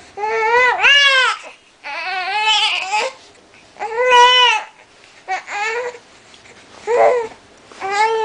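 A baby's high-pitched babbling and fussing cries: about six drawn-out voiced sounds, each rising and falling in pitch, with short pauses between them.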